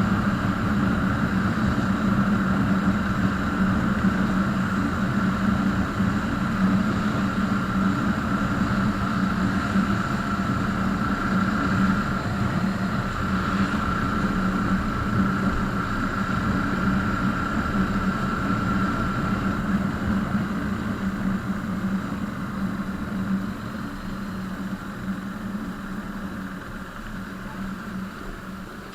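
A vehicle engine running steadily, with a steady whine above it, growing quieter over the last several seconds.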